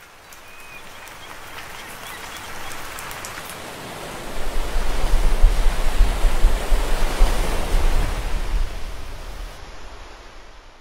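Humpback whale lunge feeding: a rush of splashing water that swells to a loud surge with a deep rumble as the whale breaks the surface mouth-first, then fades as it settles.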